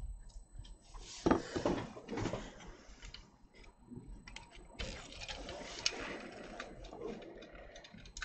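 Handling noise as a graphics card is worked out of a motherboard's PCIe slot by gloved hands: irregular clicks, rustles and scrapes, loudest a little over a second in, with a sharp click near six seconds.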